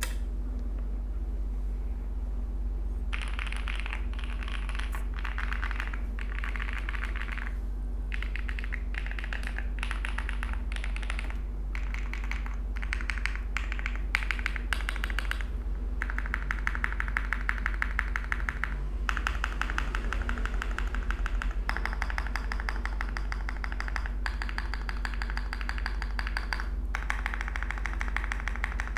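Fast typing on an Owlabs x Mr. Suit custom mechanical keyboard with a POM plate, full foam and lubed Owlabs Tungsten switches under CRP Tulip keycaps. It is a dense clatter of keystrokes in runs of a few seconds with short pauses, starting about three seconds in.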